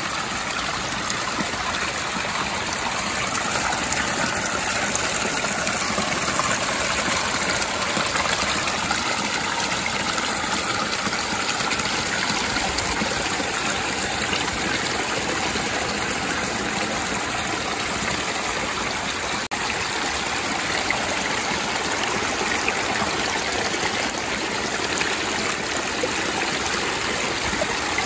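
Mountain-fed stream flowing steadily, a constant even noise of running water.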